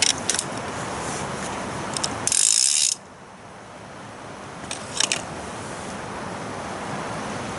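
Fishing reel's drag ratcheting as line is pulled off it by hand: a few short clicks at first, a louder half-second buzz a little over two seconds in, then a couple more clicks around five seconds.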